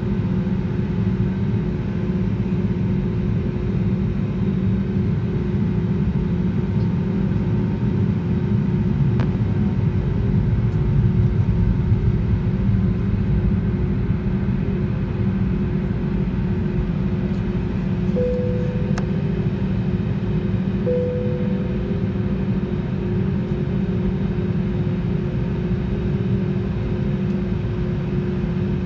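Steady cabin noise inside an Airbus A320neo taxiing, its CFM LEAP-1A engines running at low thrust: a low rumble with a steady hum. About two-thirds of the way through come two short tones, about three seconds apart.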